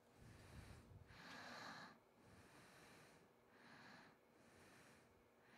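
Near silence with a few faint breaths, spaced a couple of seconds apart.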